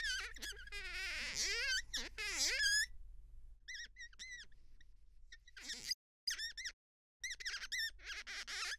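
High-pitched, wavering whines and squeaks in short separate bursts, sweeping up and down in pitch during the first few seconds, then coming in shorter calls with gaps between.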